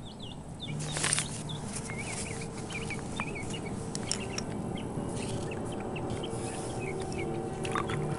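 Birds calling around the water: many short, quick chirps repeating throughout, with one brief louder noise about a second in.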